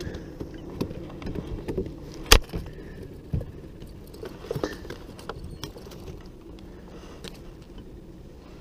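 Fishing rods and reels being handled in a boat: scattered clicks and knocks of gear, with one sharp knock about two seconds in and another a second later, over a low steady background rumble.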